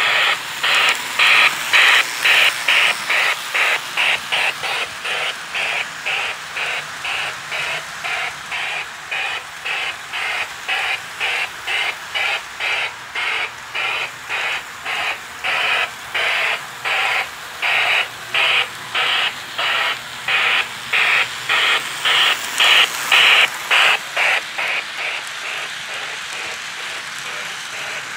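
Lionel MPC-era O scale steam locomotive running on the layout, its steam chuff sounding as an even, hissing chuff about two to three times a second. Near the end the chuffs briefly blur into a steadier hiss before picking up again.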